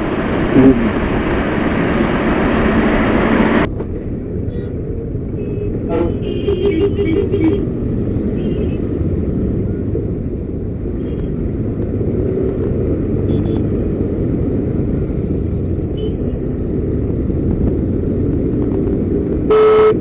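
Motorcycle riding in road traffic: steady wind and road rumble, heavier for the first few seconds, with vehicle horns tooting briefly around the middle and again near the end.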